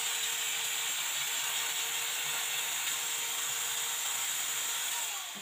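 Corded electric hand drill running steadily as it bores into the wall, with a steady motor whine. About five seconds in the trigger is released and the motor winds down, its pitch falling.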